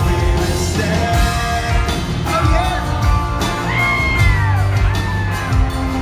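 Live country band playing loudly, with a steady drum beat, bass and electric guitar, and a male singer's voice at first. From about four seconds in, audience members whoop over the music.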